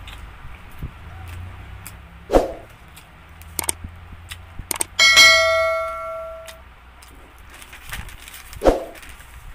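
Pizza slices being pulled apart and the liner paper handled: light crackles and two dull knocks. About five seconds in, a single metallic clang rings out and fades over about a second and a half.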